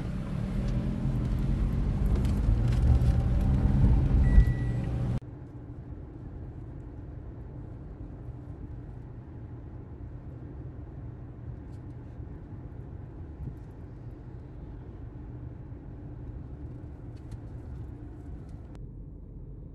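Toyota car heard from inside the cabin: for about five seconds the engine and road noise grow louder as the car gets under way, with a short beep near the end of that stretch. Then comes an abrupt drop to a quieter, steady hum of the car cruising on the highway.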